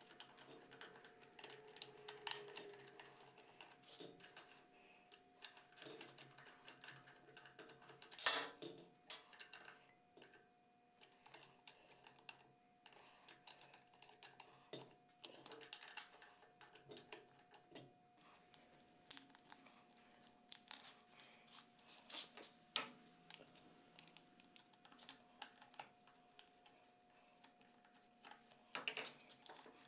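Irregular small metallic clicks, taps and scrapes of hand tools on an induction motor's housing as its through-bolts are loosened and the end bell is pried off, with a few louder knocks.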